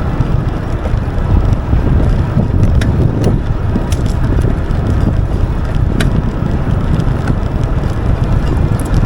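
Heavy wind buffeting the microphone while riding an Aventon Level 2 e-bike, with a few sharp clicks scattered through it. The clicks are an intermittent clicking from the bike that the rider thinks might be something in the crank.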